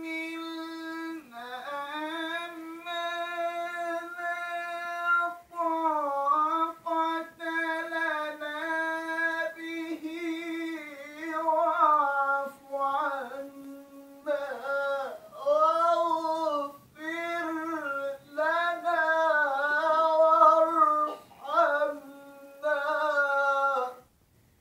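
A man reciting the Quran solo in a melodic tilawah style, holding long ornamented notes in phrases broken by short breaths. The recitation stops abruptly near the end.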